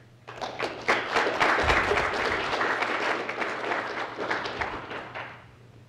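Audience applauding at the end of a talk: a burst of many hands clapping that starts a moment in, peaks within a couple of seconds and fades out near the end.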